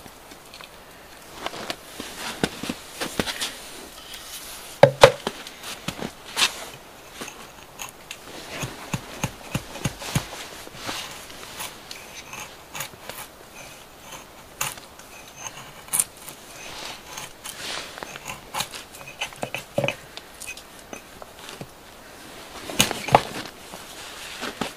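A hatchet shaving and splitting dry kindling sticks, with scattered knocks and scrapes of wood being laid in a metal fire pit. Two sharper knocks stand out, about five seconds in and near the end.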